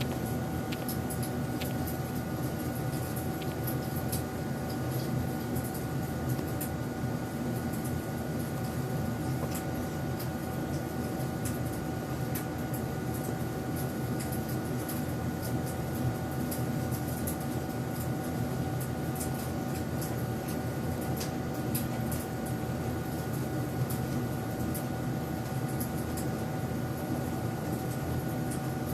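Steady mechanical hum with a constant whine, dotted with faint light clicks.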